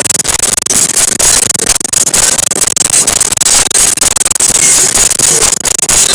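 Loud, steady static-like hiss, crackling densely all the way through.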